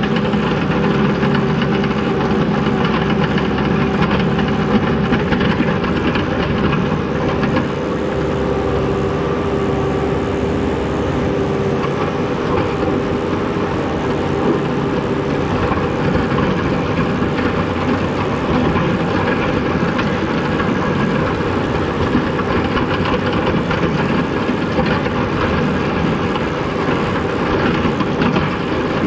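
Skid steer engine running steadily and loud, with a steady droning tone over it.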